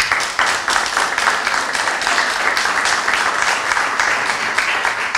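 Audience applauding, starting abruptly and keeping up a steady clatter of many hands.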